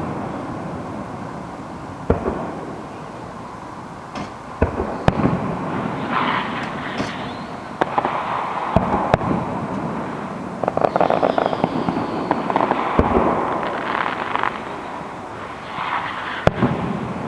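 Aerial fireworks shells bursting: sharp booms every second or two, with stretches of rapid crackling between them.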